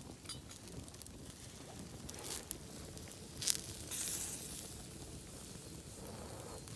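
Wood campfire crackling, with scattered sharp pops, the loudest about three and a half seconds in, followed by a short hiss.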